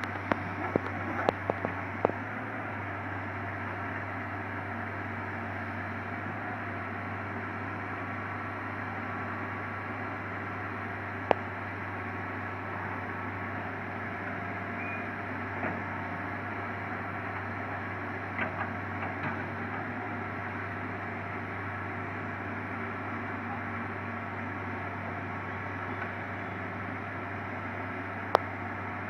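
Diesel engine of a Hitachi Zaxis 200 long-arm excavator running steadily as a low, even hum, with a few sharp metallic clicks, several in the first two seconds and single ones later.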